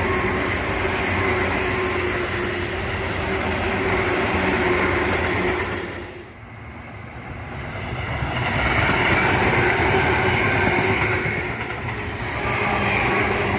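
Tobu Tojo Line electric train running past, with wheel and rail noise and a steady whine. The sound fades about halfway through, then builds again to full loudness.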